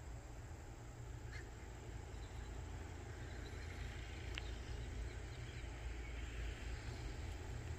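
Faint outdoor background: a steady low rumble with a light hiss, and a single sharp click about four and a half seconds in.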